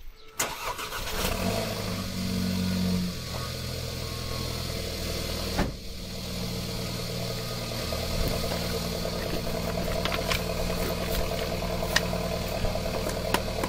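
Car engine cranking and starting, running faster and louder for a couple of seconds, then settling into a steady idle. A single thump comes about five and a half seconds in.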